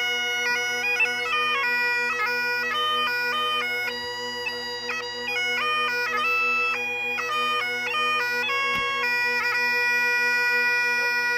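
Bagpipes playing: a steady drone under a chanter melody that steps from note to note.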